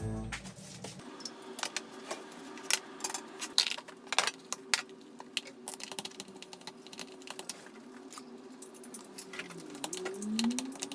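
Plastic rice paddle clicking and scraping against a plastic bowl in irregular taps while rice is stirred and mixed. A faint steady hum runs underneath, and a short rising-and-falling tone comes near the end.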